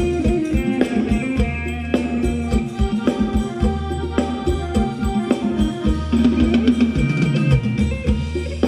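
Live band playing upbeat Thai ramwong dance music: a steady drum-kit beat under sustained bass notes and an instrumental melody, with no singing.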